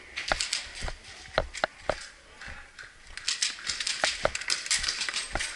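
Irregular sharp clicks and knocks, a few a second and coming thicker after about three seconds.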